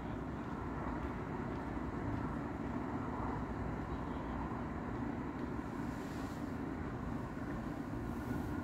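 Steady low background rumble of a suburban street at night, even and unbroken, with no distinct event standing out.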